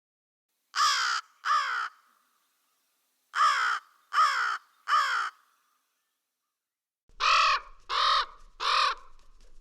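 Crow cawing: two harsh caws, a pause, three caws, another pause, then three more caws near the end.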